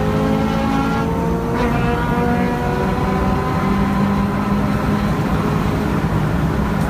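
2005 Subaru WRX STI's turbocharged EJ207 flat-four pulling hard down a straight, heard from inside the cabin, its pitch climbing steadily with a brief dip about a second and a half in. Tyre and wind noise run underneath.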